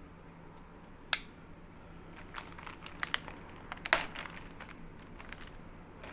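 Clear plastic bag crinkling in irregular crackles as it is worked off a bench power supply, with a single sharp click about a second in.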